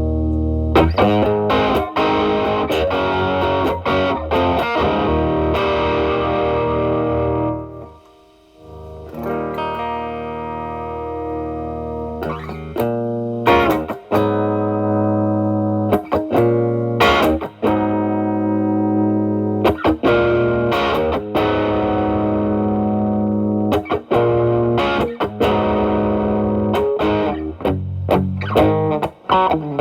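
Telecaster electric guitar played through an E.W.S. Brute Drive distortion pedal with its gain around 10–11, into a Marshall Valvestate amp's drive channel: heavily distorted chords and lines. After a brief gap about eight seconds in, the playing goes on cleaned up, with less distortion.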